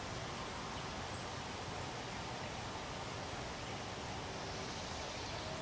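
Steady outdoor background noise: an even hiss with no distinct events, and a few faint, brief high-pitched sounds over it.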